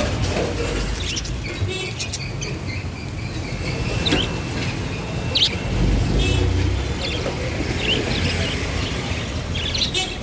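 Budgerigars chirping, with short, scattered high chirps over a steady low rumble.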